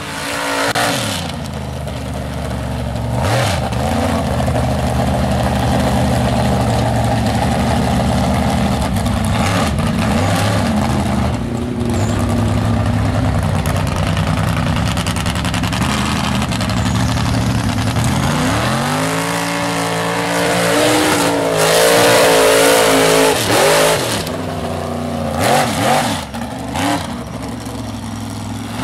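High-horsepower lifted mud truck engines running hard. The engine note holds fairly steady for a long stretch, then sweeps up and down again and again as the throttle is worked, loudest a little past the middle.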